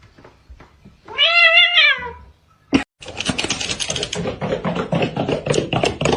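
A cat's single loud meow about a second in, rising and then falling in pitch. After a sudden break it gives way to a dense run of rapid scratchy clicks and rustling.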